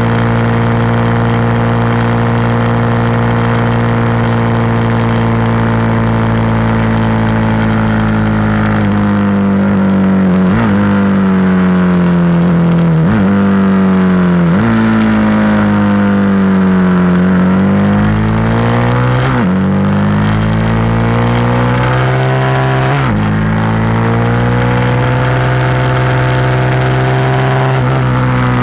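Single-cylinder engine of a KTM SMC supermoto, heard from onboard over wind rush. It holds steady revs for the first nine seconds or so, then the revs swing down and up through several gear changes into and out of a turn, climbing again and steadying near the end.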